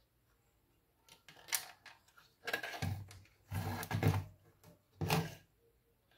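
Handling noise as a computer motherboard is lifted and turned over on a workbench: four short scraping, rattling bursts with dull bumps, the loudest about four seconds in.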